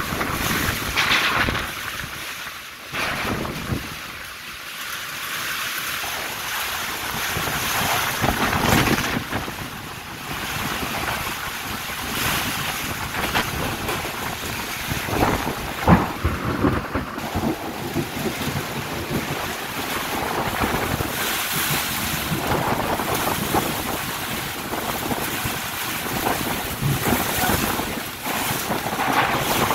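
Storm wind gusting hard across the microphone with driving rain, a rushing noise that swells and eases in gusts, with one sharp knock about halfway through.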